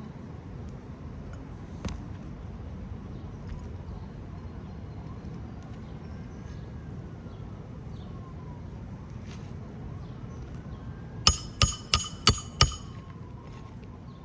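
Five quick hammer strikes on a metal roofing repair tool, driving a 1.25-inch roofing nail into an asphalt shingle. They come near the end, each one a sharp, ringing metallic clink over a steady background hiss.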